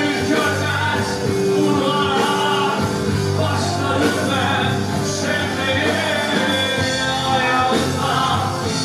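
Anatolian rock band playing live, heard from within the crowd: electric guitar, bass and drums, with a man's voice singing.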